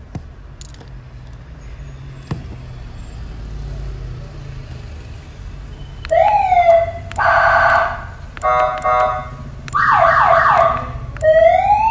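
Six-tone electronic siren sounding and switched through its different tones in turn: a rising whoop, a fast warble, a pulsing beep, a quick falling yelp, then a rising wail. It starts about six seconds in, after a low hum and a couple of clicks.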